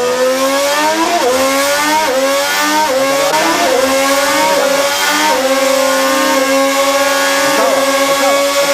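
Honda 2026 Formula 1 V6 turbo-hybrid power unit running hard. Its pitch climbs and drops back at each of four gear changes, then holds a steady high note from about five seconds in.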